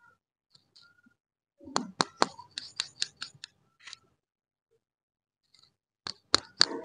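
Candy wrappers being handled by hand: a quick run of sharp crinkles and clicks, then a second short burst of crinkling near the end as a plastic-wrapped lollipop is picked up and squeezed.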